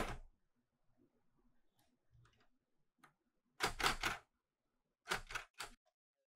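Clover 810S manual typewriter clacking: a single sharp key strike, then a quick run of clacks a little more than halfway through, and three more strikes about a second later.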